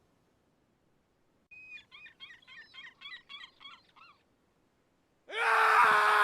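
A creature-like vocal sound effect: a rapid warbling, chirping trill for about two and a half seconds, then, near the end, a loud sustained scream-like cry.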